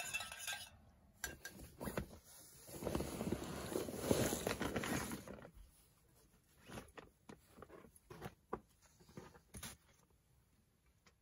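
A folding camp chair being handled and set up: a stretch of rustling, then scattered light clicks and knocks as the frame is opened and set down.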